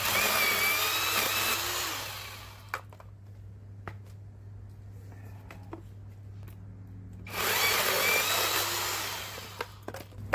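YOVOT 12-inch cordless battery-powered electric chainsaw running in two bursts of about two seconds, one right away and one about seven seconds in, each with a high motor whine that winds down as the trigger is released.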